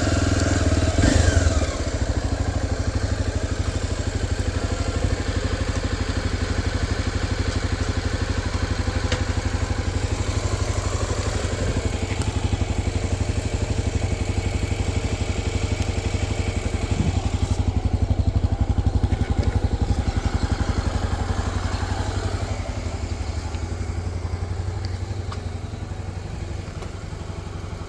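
Honda XR250 Tornado's single-cylinder four-stroke engine idling with a steady pulse, after a short rev about a second in. It gets a little quieter near the end.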